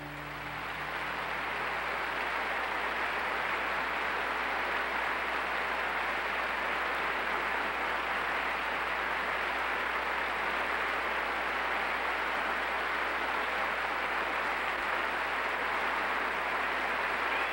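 Large concert audience applauding, swelling over the first couple of seconds as the last piano notes die away, then holding steady.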